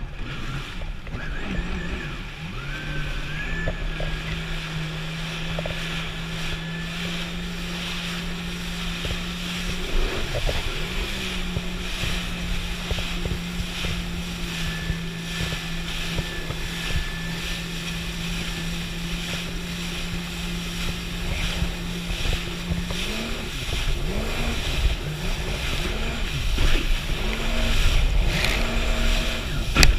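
Yamaha VX Sport jet ski's four-stroke engine running under throttle at a steady pitch, stepping up once partway through, with wind and water spray noise. Near the end the revs rise and fall several times as the throttle is worked.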